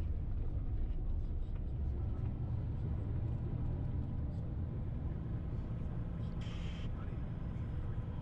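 Tour bus on the move: a steady low engine and road rumble, with a brief hiss about six and a half seconds in.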